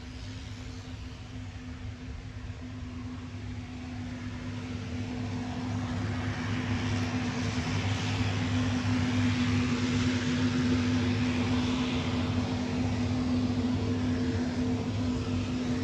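Cessna Conquest II's twin Garrett TPE331 turboprop engines running at taxi power: a steady propeller drone with a hissing whine. It grows louder over the first half and then holds steady.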